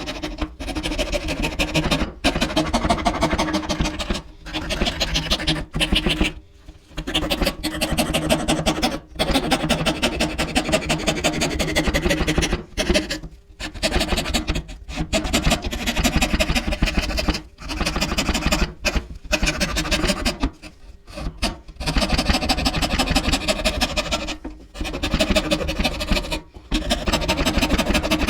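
Fine-toothed hand saw cutting through thin wooden board: rapid rasping strokes in runs of a second or two, broken by short pauses.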